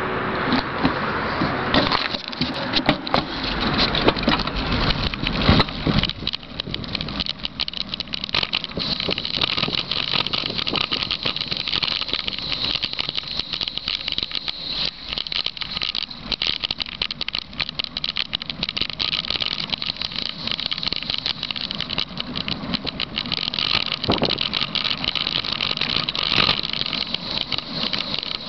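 Bicycle coasting downhill on pavement: a steady rush of wind and road noise over the camera, with frequent rattling clicks from the bike and camera mount jolting over the road surface and a few louder knocks in the first several seconds.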